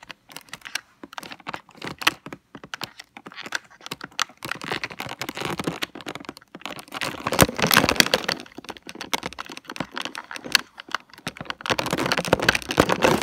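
Clear plastic blister packaging crackling and clicking as it is handled and pulled at. The sharp crackles come in a dense run, thickest in the middle and again near the end.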